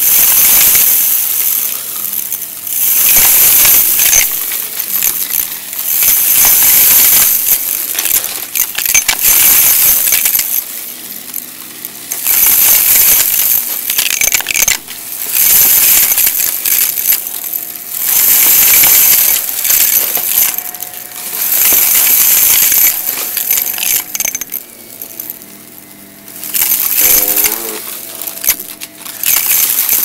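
Vacuum cleaner running in repeated back-and-forth strokes, its sound swelling and falling about every two seconds, with hard bits of debris clicking and rattling as they are sucked up.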